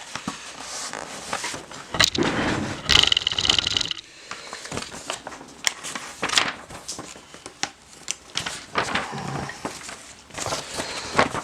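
Paper instruction sheet rustling and crinkling as it is unfolded and handled, with small scrapes and taps. It is loudest about two to four seconds in.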